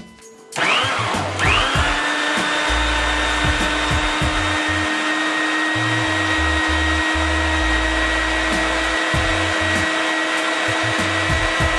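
Food processor motor switching on about half a second in, its whine rising as it spins up, then running at a steady pitch while it purées roasted poblano peppers with garlic, vinegar and oil into a vinaigrette.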